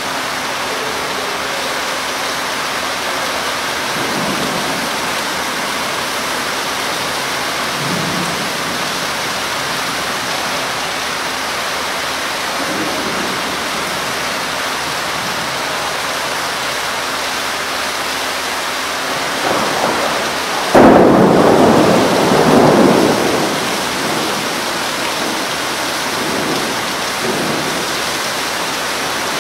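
Heavy rain pouring steadily on leaves and paving. About two-thirds of the way through, a sudden loud clap of thunder rumbles on for two or three seconds, and a few fainter low rumbles come and go before it.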